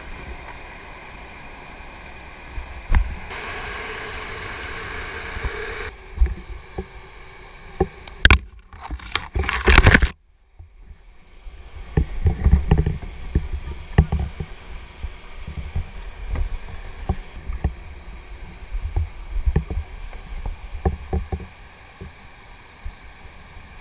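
Whitewater rapids rushing in a steady noise. After a cut about ten seconds in come irregular low knocks and bumps as plastic whitewater kayaks are hauled over the rocks beside the river.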